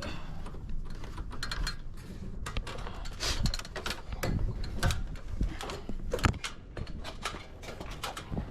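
A run of irregular knocks and clicks with rustling in between, unevenly spaced, the strongest a little after three, four and six seconds in.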